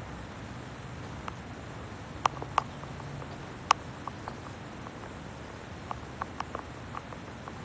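About a dozen light, sharp taps at irregular intervals over a steady hiss, the loudest near the middle.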